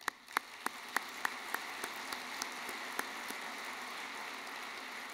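Audience applauding. It starts as a few scattered claps and quickly fills into steady applause.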